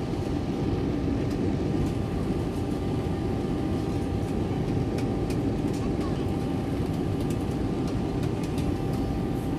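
Steady cabin noise of a jet airliner in flight during its descent to land: an even low roar of engines and airflow, with a faint steady hum on top.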